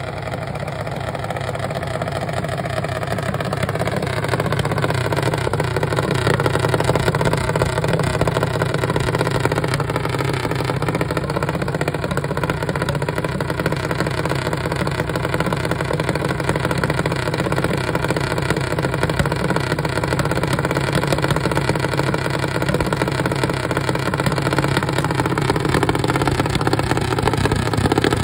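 Junior dragster's single-cylinder engine running steadily at idle, growing a little louder a few seconds in.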